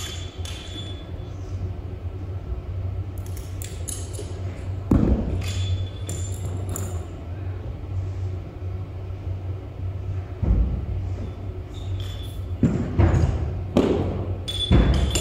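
Barbell and bumper plates being handled on a rubber gym floor: metallic clinks of plates and collars, and heavy thuds about five and ten seconds in, then three more close together near the end. A steady low hum runs underneath.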